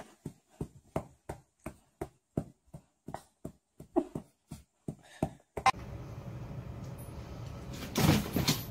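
A dog's tail wagging and thumping against a leather couch, about three soft thumps a second. The thumps stop abruptly about five and a half seconds in, giving way to a steady background hiss.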